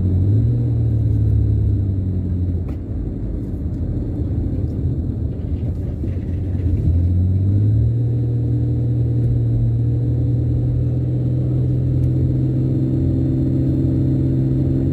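Car engine and road rumble heard from inside the cabin while driving, a steady low engine hum. The engine note steps up in pitch twice, just after the start and again about eight seconds in, then holds steady.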